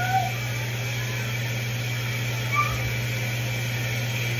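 Steady low hum of kitchen running noise, like a range-hood fan or motor, with a couple of brief faint high chirps that sound like a small child's voice in the background.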